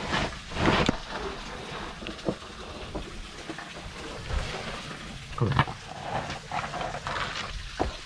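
A man's heavy breathing after squeezing through a narrow cave passage. There are louder breaths or scuffs just under a second in, at about five and a half seconds and near the end.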